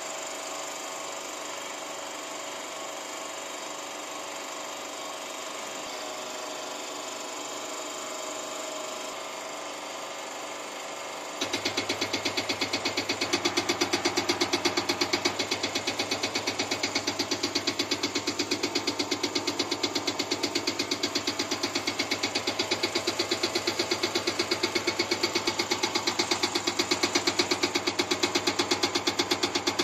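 Diesel injector test bench running with a steady whir. About a third of the way in, a CAT C7/C9 HEUI injector starts firing on the bench at 20 MPa actuation oil pressure: a rapid, even ticking over a steady hum.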